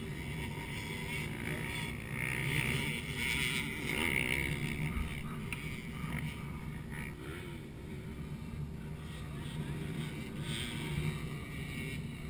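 Motocross dirt bike engines running and revving on the track, the sound rising and falling as the bikes go by.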